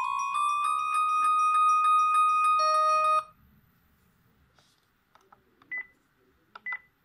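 NEC e313 mobile phone ringtone: a synthesized melody of stepped electronic notes that cuts off suddenly about three seconds in. A few faint clicks and two short beeps follow near the end.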